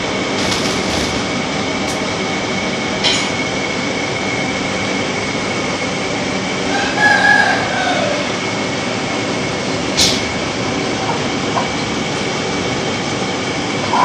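A rooster crows once, about seven seconds in, a single falling call of about a second and a half. It sounds over a loud, steady mechanical drone with a constant high whine. There are a couple of short sharp ticks.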